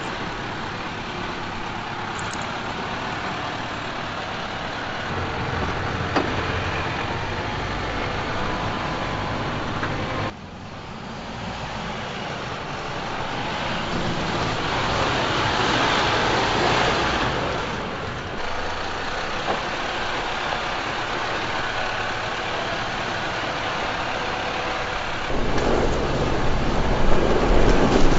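Mercedes-Benz Unimog truck driving off-road, its diesel engine running; the sound drops off suddenly about ten seconds in and gets louder and rougher near the end as the truck rolls over gravel.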